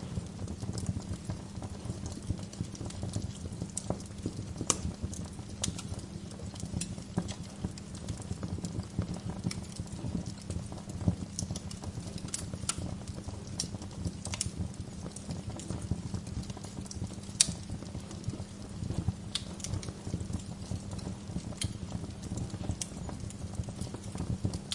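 Wood fire burning in a fireplace: a steady low rumble of flames with irregular sharp crackles and pops from the burning logs, the loudest pop about two-thirds of the way through.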